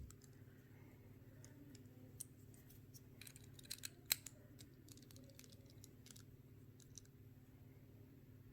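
Faint, scattered small clicks of a screwdriver bit working the body screws of a folding knife as they are snugged down, a little cluster of them about three to four seconds in, over a faint steady low hum.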